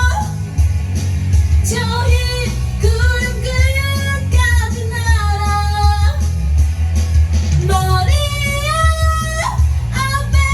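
A woman singing karaoke over a backing track, with held, sliding high notes over a steady pulsing bass beat.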